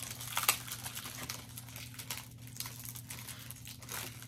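Light crinkling and scattered small clicks from Blu-ray cases and packaging being handled, over a steady low hum.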